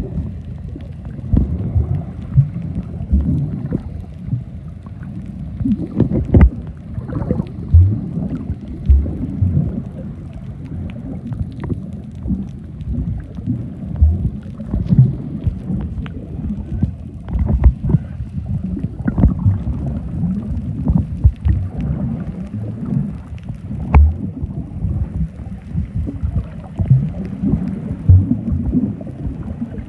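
Muffled underwater sound picked up by a camera held below the surface: low water noise with many irregular knocks and bumps.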